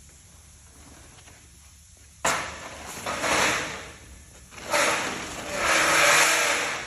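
Snowmobile shipping crate being opened: a sudden bang about two seconds in, then several bouts of rasping, scraping noise.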